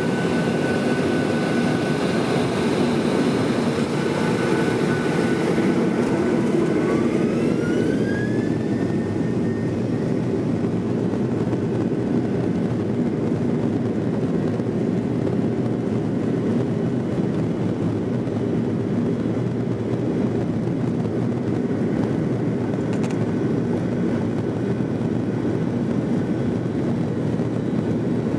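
Jet airliner's turbofan engines heard from inside the cabin at takeoff power: a whine climbs in pitch several seconds in and then holds steady, over a loud, constant rumble of the engines and the takeoff roll.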